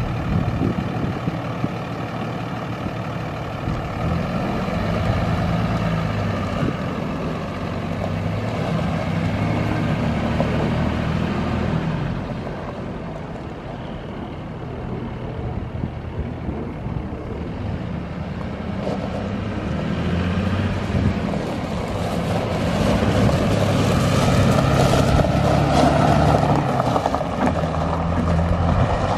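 5.9-litre Cummins inline-six turbodiesel of a 2003 Dodge Ram 3500 idling at a steady pitch. It fades somewhat about halfway through, then grows louder again in the second half.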